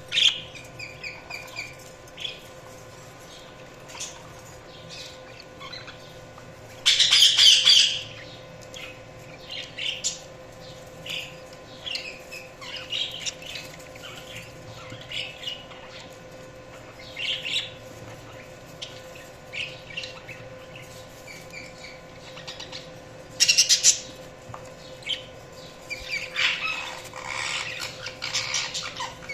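Budgerigars chirping and chattering in short, high calls through the whole stretch, with louder bursts of calls about seven seconds in and again past the twenty-second mark, and a longer run of warbling chatter near the end.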